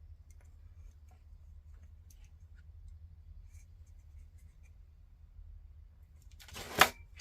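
Faint small taps and ticks of hands handling tools and wires at a workbench over a low steady hum, then near the end a short, loud clatter.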